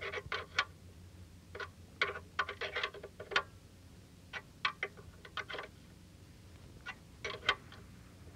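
Box-end wrench clicking and clinking against an oil pan drain plug as the plug is snugged down, in irregular clusters of short sharp metal clicks.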